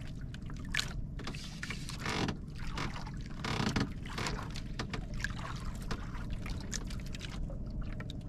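Small waves slapping and splashing against the hull of a wooden outrigger boat, over a steady low rumble, with scattered small knocks.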